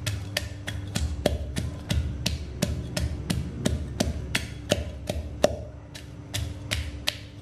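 Wooden pestle pounding in a clay mortar, steady knocks about three a second with a short pause near the end, crushing garlic with a little salt for a seafood dipping sauce. A steady low hum runs underneath.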